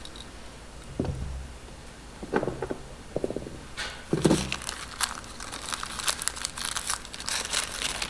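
Crinkling and rustling of plastic packaging being handled, dense in the second half, with a few light knocks of small parts before it.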